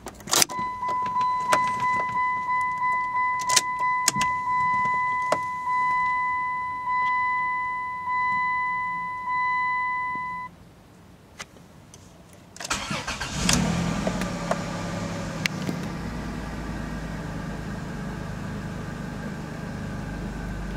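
Dashboard warning chime of a 1998 Plymouth Voyager bonging repeatedly once the key is turned on, quickly at first and then more slowly, with key clicks over it; it stops about ten seconds in. After a short pause the engine cranks, catches quickly and settles into a steady idle.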